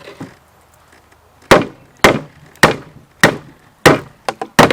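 Hard chopping strikes of a knife into a coconut's shell: five evenly spaced blows about every half second, then a quicker flurry of three or four near the end.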